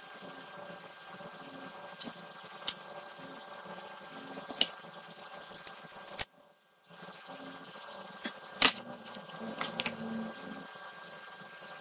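Scattered light clicks and taps from handling wired LED boards and small tools on a workbench: a few sharp ones stand out, about three seconds in, near the middle and past eight seconds. A steady hum runs underneath, and the sound cuts out for a moment a little after six seconds.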